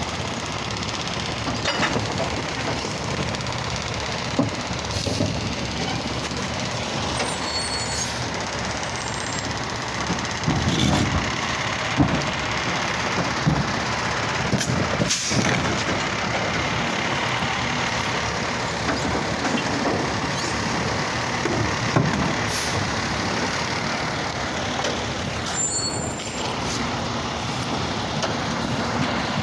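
Automated side-loader garbage truck running, its diesel engine and hydraulic arm working as carts are lifted and dumped into the hopper, with a few sharp knocks.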